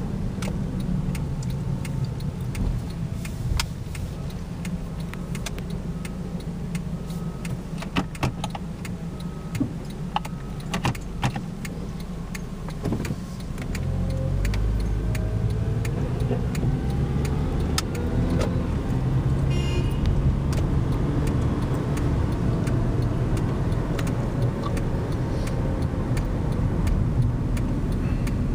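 Car heard from inside the cabin: a low steady rumble with scattered sharp clicks while stopped, then engine and road noise grow louder about halfway through as the car pulls away from the lights and drives on.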